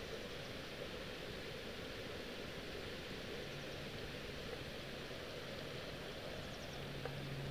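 Steady rushing noise of a mountain bike ride: wind on the camera microphone and tyres rolling over a dirt trail. A faint low hum comes in about halfway and grows stronger near the end.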